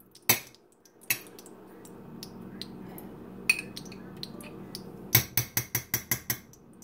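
Large metal spoon against a stainless steel skillet as lard is spooned into warm olive oil: a couple of clinks at the start, then a quick run of about eight taps on the pan about five seconds in, knocking the lard off the spoon.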